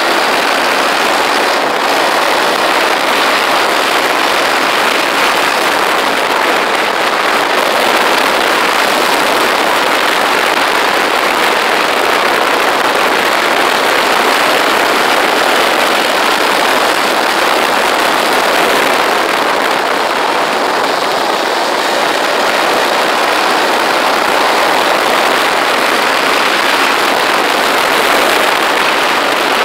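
Motorcycle cruising at steady speed, heard from the rider's seat: a loud, even rush of wind and road noise over the engine, with no changes in pace.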